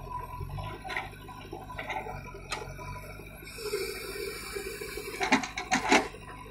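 JCB backhoe loader's diesel engine running steadily while its bucket digs into stony earth. A rushing hiss comes near the middle, then a cluster of sharp knocks and scrapes about five to six seconds in as the bucket teeth bite into the stones.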